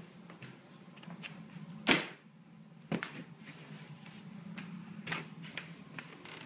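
Scattered knocks and clicks over a low steady hum, the loudest a sharp knock about two seconds in, with smaller ones about a second later and again near five seconds.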